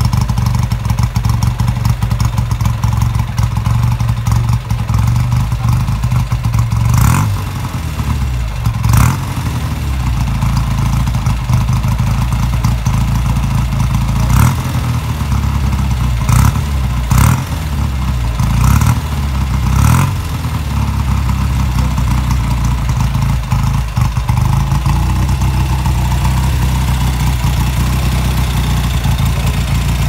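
BSA Gold Star single-cylinder motorcycle engine idling with its exhaust note, blipped with about seven quick throttle revs in the middle, then settling back to a steady idle.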